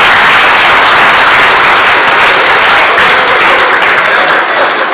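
Audience applauding, dense and steady, dying down near the end.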